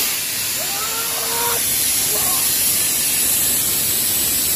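A steady, loud hiss like a spray, with faint shouting voices under it in the first half.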